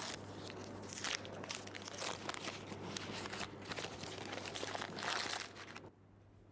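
Gift wrapping paper crinkling and tearing as a present is unwrapped by hand, a dense run of crackles that stops abruptly about six seconds in.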